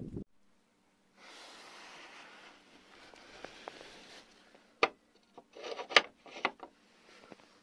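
A rusty metal bolt latch on a wooden barn door being slid open by hand: a few sharp metallic clicks and scrapes, the loudest about six seconds in. Before them comes a few seconds of soft, even rustling hiss.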